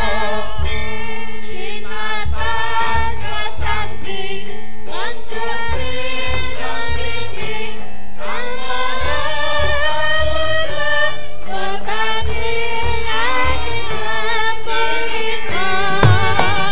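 Several Javanese sindhen singing together into microphones, with long, sliding sung lines over gamelan accompaniment and regular low drum beats. Near the end, louder low drum strokes come in.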